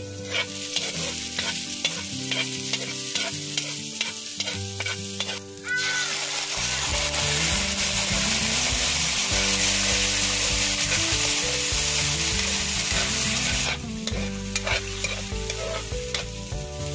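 Minced garlic and onion sizzling in hot oil in a wok, with clicks of a metal spatula stirring. About six seconds in, canned sardines in tomato sauce go into the pan and the sizzle turns suddenly louder and fuller. Near the end it eases back to a lighter sizzle with spatula clicks.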